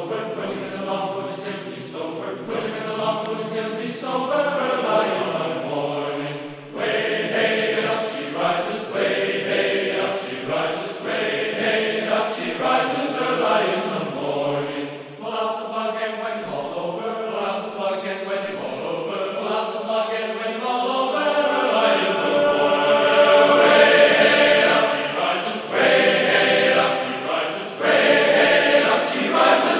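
Background vocal music: a choir singing.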